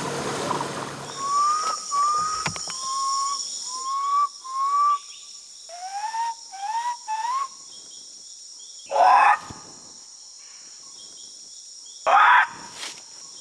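A run of about eight short, rising whistled notes, followed by two louder, hoarser calls about nine and twelve seconds in; the second call is made by a man through cupped hands. A steady high insect drone continues underneath throughout.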